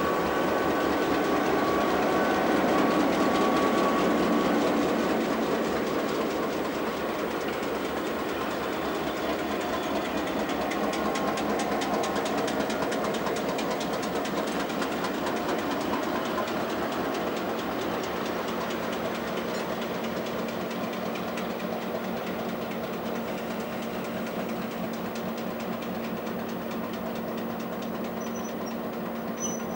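Australian National GM-class diesel-electric locomotives running steadily at idle, with a steady low engine hum that grows clearer about two-thirds of the way through.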